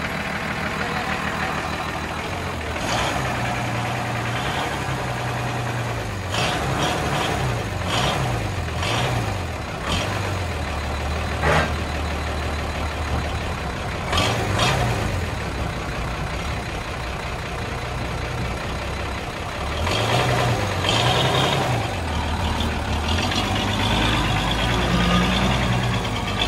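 1971 Chevrolet C60 truck's six-cylinder diesel engine idling and being revved up and back down several times, with a few short sharp noises along the way.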